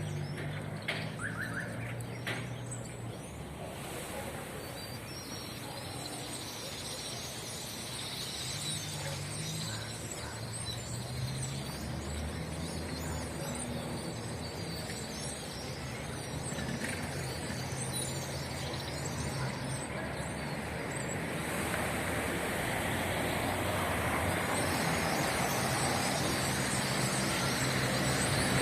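Many birds chirping as they gather at their roost, over a low rumble of road traffic that slowly grows louder toward the end.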